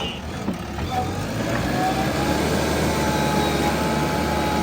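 Diesel engine of heavy earthmoving machinery running steadily, with a faint whine that rises slightly in pitch about a second in.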